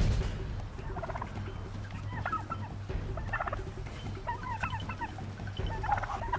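White domestic turkey tom gobbling repeatedly, about five short rattling gobbles roughly a second apart.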